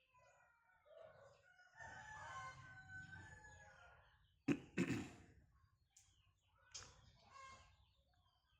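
A rooster crowing, one call of about two seconds, followed by two loud sharp sounds in quick succession and a few fainter ones.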